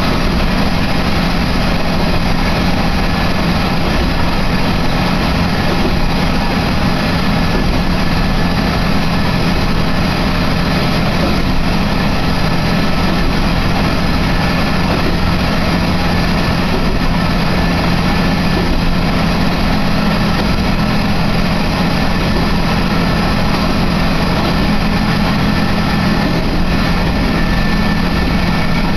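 Diesel railcar heard from inside the passenger cabin, its engine and wheels on the rails making a steady low drone as the train travels.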